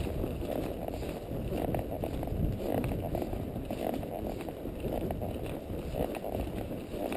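Quarter horse walking under a rider: soft, irregular hoof falls on a dirt trail mixed with the rustle and creak of saddle and tack.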